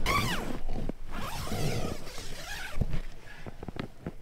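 Tent door zipper pulled open: a quick rising-and-falling zip at the start, then a rustle of tent fabric and a few small clicks.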